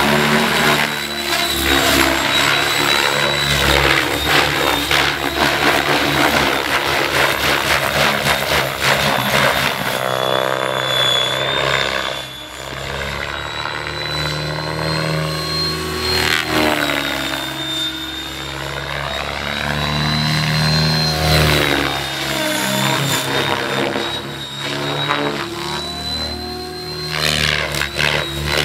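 Electric Mikado Logo 600 RC helicopter flying, its Scorpion brushless motor and 623 mm Edge rotor blades giving a steady high whine over the blade noise. The sound swells and fades, dipping several times as the helicopter swoops around the field.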